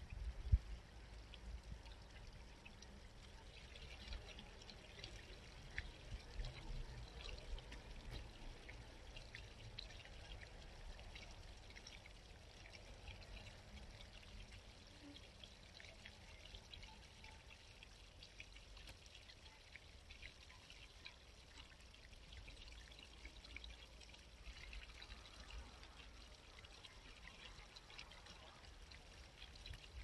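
A small country brook babbling and trickling faintly, with a low, uneven rumble underneath.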